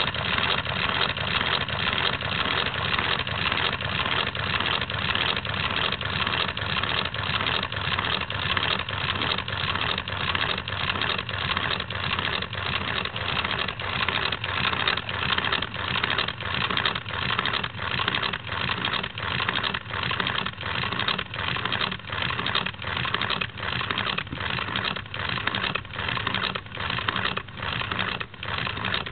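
Single-cylinder Lego pneumatic engine running on compressed air, with a rhythmic beat of air puffs, one per stroke. The beat gradually slows as the air tank's pressure falls.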